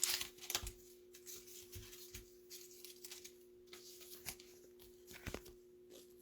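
Faint rustling and light clicks of trading cards and card holders being handled, over a steady faint hum.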